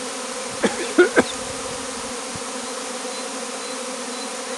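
A honeybee swarm buzzing steadily in the air around a straw skep held up under the cluster, as the swarm is being taken into the skep. A few brief, sharper sounds stand out about a second in.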